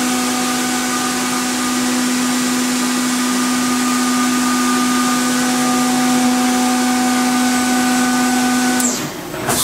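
Fanuc Robodrill drill and tap center running: a steady machine hum over an even rushing hiss, dipping briefly near the end.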